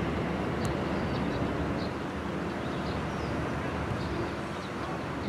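Steady outdoor background noise with a faint low hum and a few faint high chirps.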